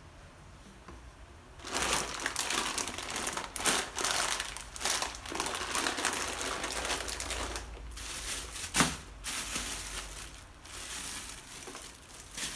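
Grocery packaging being handled: plastic wrapping crinkling and rustling in close-up, with a sharp knock about two thirds of the way through.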